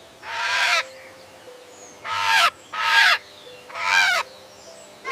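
Macaw squawking: four harsh, raspy calls, each about half a second long, the first one alone and the other three closer together.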